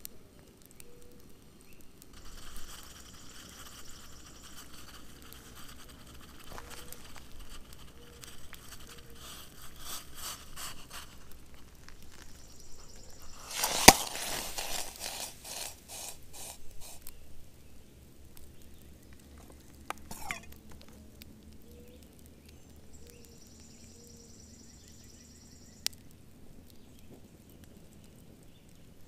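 Water slopping from a pot onto hot campfire coals: a sharp crack about halfway through, then a loud hiss and sizzle of steam with rapid crackling for about three seconds. Low campfire crackle before and after.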